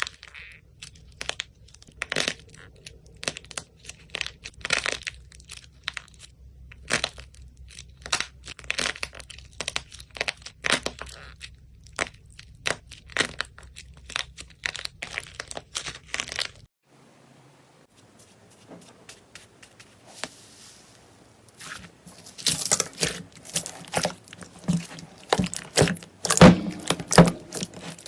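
Slime being squeezed and worked by hand close to the microphone, making irregular crackling and popping clicks. The sound goes quiet for a few seconds past the middle, then returns as denser, louder crackling near the end.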